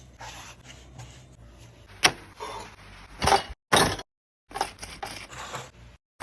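Close-miked food and kitchen handling sounds: a sharp tap about two seconds in, then several short scraping or rustling bursts, and another sharp tap at the very end.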